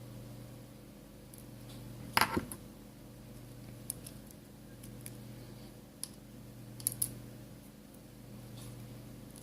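Light clicks and taps of a precision screwdriver and tiny screws on an iPhone 5s display assembly as the screws are taken out and set down: one sharper tap about two seconds in, then a few scattered light clicks, over a steady low hum.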